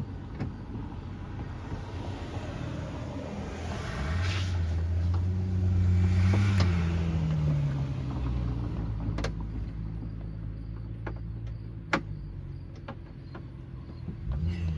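A motor vehicle passes by, its engine growing louder and then falling in pitch as it goes away. A few sharp metallic clicks come later, the loudest about twelve seconds in.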